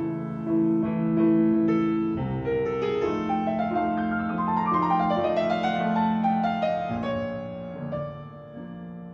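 Background piano music: a gentle solo piano piece whose melody climbs higher in the middle, then settles back down.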